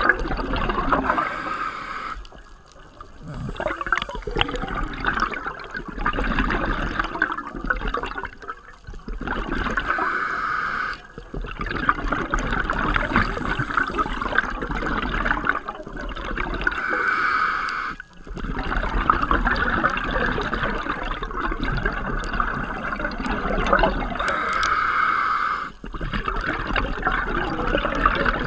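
Scuba regulator exhaust bubbles gurgling and rushing past an underwater camera housing. The bubbling comes in long bursts broken by short pauses every few seconds.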